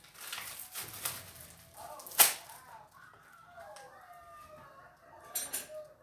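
Plastic wrapper crinkling as it is cut and torn off a microwave popcorn pack, with one sharp click about two seconds in.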